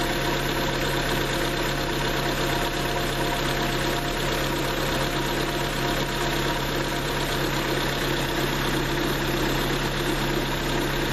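A 2000 Honda Civic's D16Y8 1.6-litre SOHC VTEC four-cylinder engine idling steadily, warmed up with the thermostat open while air is bled from the cooling system.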